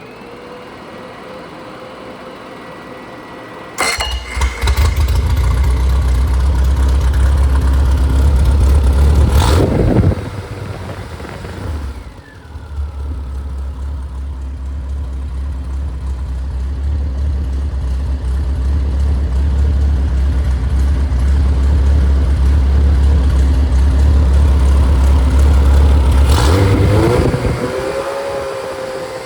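Rebuilt Triumph Spitfire / MG Midget 1500 four-cylinder engine with a 270 cam, revved by hand on its throttle. It idles, jumps up in revs about four seconds in and holds for several seconds, drops back, then climbs again more gradually and holds a long time before falling back to idle near the end.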